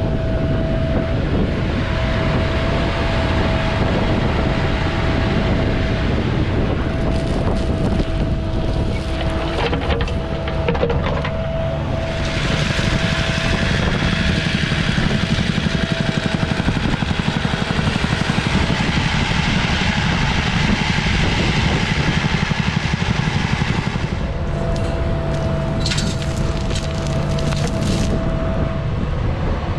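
Diesel engine of a compact construction machine running under load, with a steady whine over the rumble. A stretch of hiss in the middle and a few bouts of clanking or rattling, typical of working backfill.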